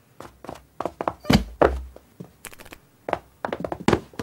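A quick, irregular run of cartoon sound-effect thumps and light taps, with two heavier thuds about a third of the way in.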